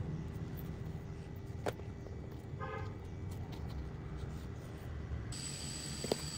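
Steady low rumble of background traffic, with a short car-horn toot about two and a half seconds in and a couple of light clicks; a thin high whine sets in about five seconds in.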